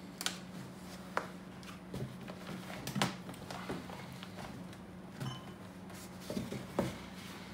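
Cigar boxes being handled on the wooden shelves of a cabinet humidor: a scatter of light knocks and taps, the sharpest about three seconds in and a few more between six and seven seconds, over a steady low hum.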